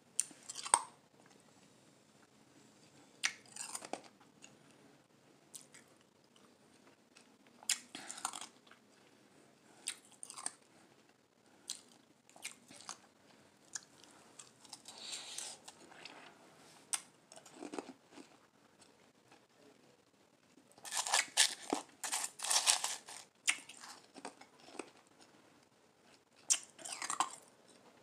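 A person crunching and chewing mouthfuls of blended crushed ice in short, spaced-out bursts every few seconds, with a longer, louder run of crunching about three-quarters of the way through.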